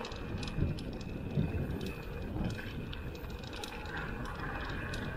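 Mountain bike rolling down a dirt and gravel track: steady tyre rumble with wind buffeting the microphone, and scattered clicks and rattles from gravel and the bike's parts.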